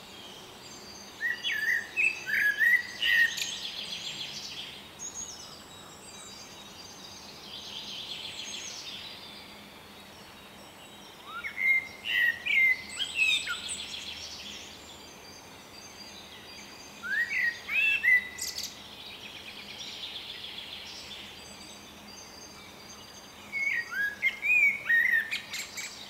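Male Eurasian blackbird singing: four short warbled phrases spread several seconds apart, with faint high chirps from other birds between them.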